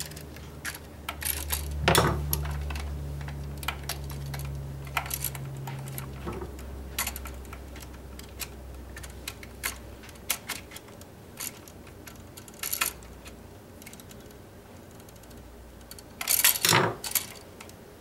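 Scattered small metallic clicks and clinks as a GFCI receptacle and its stiff copper wires are handled and a loose terminal screw is tightened back onto the black wire. A low steady hum runs under the first six seconds or so and then stops, and a louder knock and rustle comes near the end.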